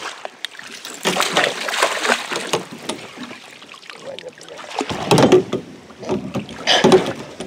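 Water splashing and knocking at the side of a boat as a large hooked pike thrashes while being fought into a landing net, in several loud, uneven bursts.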